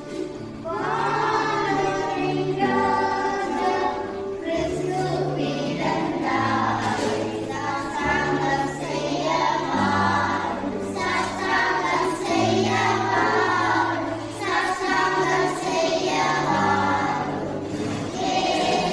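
A children's choir singing a Christian song together, over accompaniment with held low notes that change in steps.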